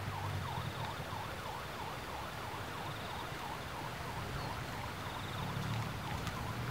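An electronic convoy siren sweeps down and up about twice a second, over the low hum of Suzuki APV van engines rolling slowly.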